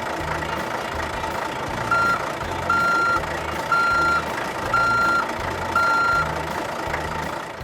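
Vehicle reversing alarm beeping five times at one steady pitch, about once a second, over a steady low engine rumble.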